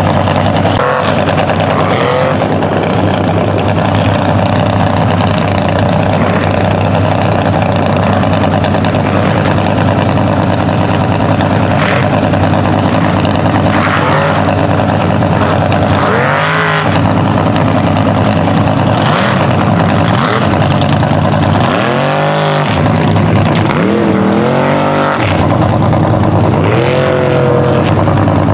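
Mega truck engines running hard, with several sharp rev swells that rise and fall in the second half as the trucks power over the dirt jumps.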